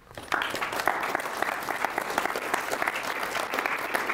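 Audience applauding: a dense, steady patter of many hands clapping that starts a moment in.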